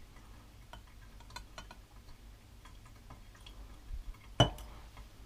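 Quiet handling of glass labware, a beaker and a measuring cylinder holding an alcohol hydrometer. A few faint light ticks, then one sharp glass clink about four and a half seconds in.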